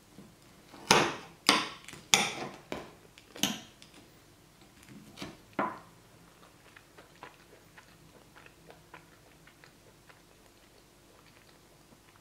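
Crisp, sugar-glazed crust of a toasted slice of milk bread crunching: five sharp crunches about half a second apart, two more a little later, then only faint light ticks.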